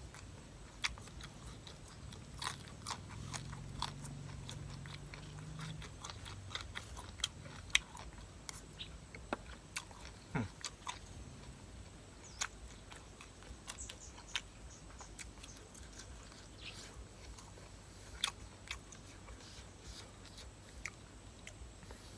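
Close-up eating sounds: a person chewing and biting food, with irregular sharp clicks and crunches.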